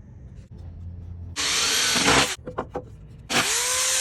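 Power drill driving screws into 2x4 boards, running in two short bursts about a second apart, each with a rising motor whine.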